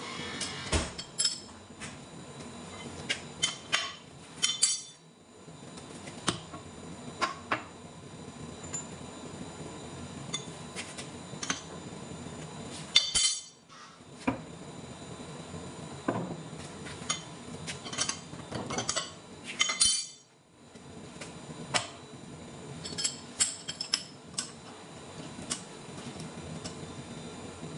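Irregular sharp metallic clinks and clanks of a steel wrench and jaws against a large lathe faceplate chuck as its jaws are adjusted, over a steady workshop hum.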